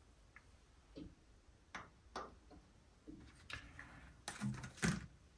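Faint, scattered light clicks and taps, about half a dozen, from a stiff punched test card being handled and moved about on the metal front panel of a valve tester.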